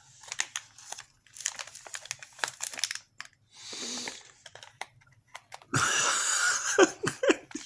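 Packaging of a field ration being handled: crackling, crinkling rustles, then a louder, longer tearing-like rustle about six seconds in.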